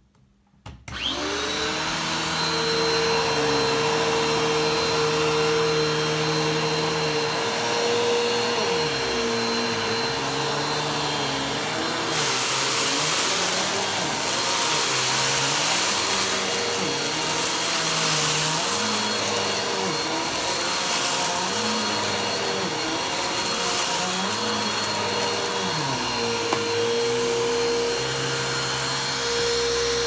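Bagless upright vacuum cleaner switched on, its motor whining up to speed within the first second and then running steadily while pushed quickly back and forth over carpet. Its pitch dips and recovers with each stroke, about every two seconds, and it gets hissier about twelve seconds in.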